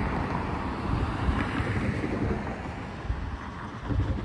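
Wind rushing over the microphone: a steady, noisy rumble strongest in the low end.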